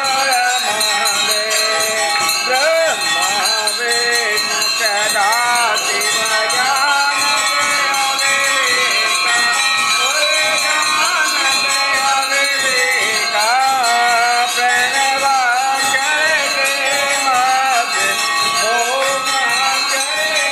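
Devotional aarti music with a wavering melody over continuous jingling bells and rattling percussion, accompanying the waving of the lamp plates.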